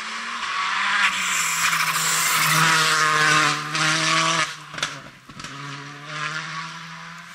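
Škoda Fabia Rally2 rally car's turbocharged four-cylinder engine accelerating hard past at full throttle, its pitch rising. About four and a half seconds in it lifts off with a few sharp cracks, then pulls away again, fading.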